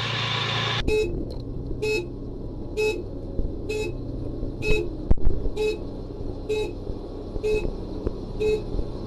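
Short electronic warning beeps repeating about once a second from a heavy missile launcher truck, over the low running of its engine. Just before the beeps begin, a loud run of engine and road noise cuts off abruptly, and a single sharp knock comes about five seconds in.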